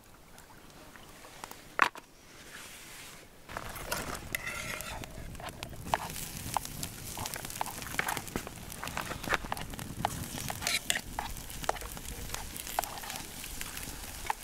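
Wood campfire burning, with irregular sharp pops and crackles over a steady hiss, starting about three and a half seconds in.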